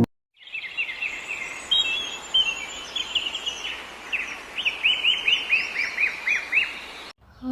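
Small birds chirping over a steady rush of running water. The chirps are quick downward-sliding notes, coming in a fast run in the second half, and the sound cuts off abruptly near the end.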